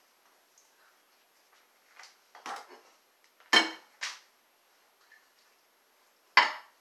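Kitchen containers and dishes clinking and knocking as they are handled and set down: a few separate sharp hits, the loudest about three and a half seconds in and another just before the end.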